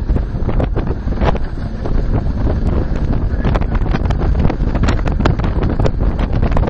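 Wind buffeting the microphone on a fast-running speedboat, over a steady low rumble from the boat and its Suzuki 300 hp outboard, with frequent sharp knocks that come more often toward the end.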